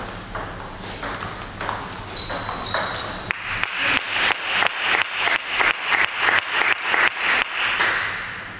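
Short rubber-soled shoe squeaks on a wooden sports-hall floor, then a celluloid table tennis ball bounced over and over at an even pace, about three bounces a second, for several seconds before stopping near the end.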